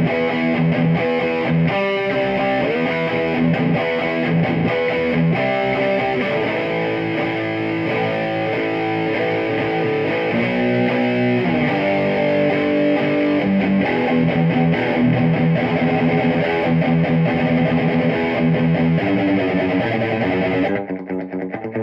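Electric guitar played through a Peavey 6505+ combo amp with an Eminence Texas Heat speaker: distorted, ad-libbed single notes and chords. Near the end the bright, gritty top end drops away and the playing turns quieter and choppier.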